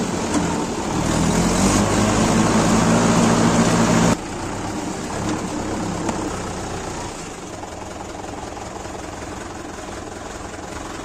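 Diesel tractor engine running hard under load while the tractor works its way out of mud. About four seconds in it drops suddenly to a quieter, steady run.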